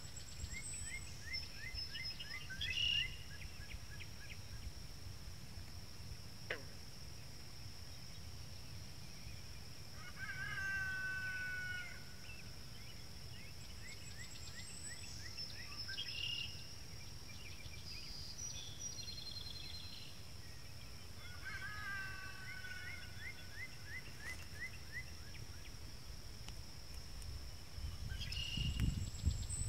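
Birds and frogs calling around a pond: phrases of quick repeated notes and short descending calls come every few seconds over a steady thin high tone. A low rumble grows louder near the end.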